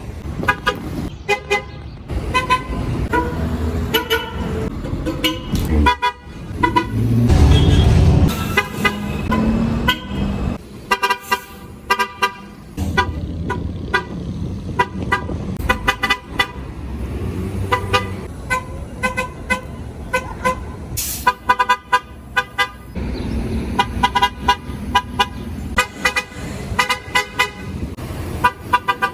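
MTA transit bus horns tooting over and over in quick runs of short beeps, with bus engine and traffic rumble underneath. About a quarter of the way in, the low engine rumble swells loudest as a bus goes by.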